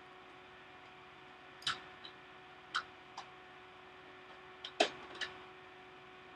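Several scattered sharp clicks from working a computer's mouse and keys, over a faint steady hum.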